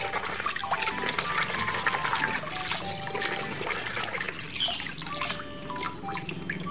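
Soapy water sloshing and splashing in a basin as a plastic toy truck is scrubbed by hand under the suds, in many quick, irregular splashes.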